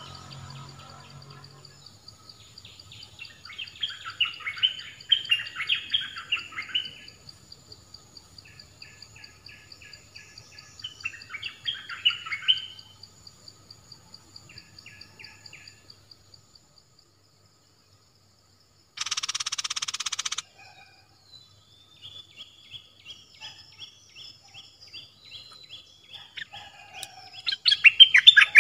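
Bulbul song: short, rapid chattering phrases in several bursts, the loudest near the end, over a steady high whine in the background. About two-thirds of the way through, a loud hiss lasts about a second and a half.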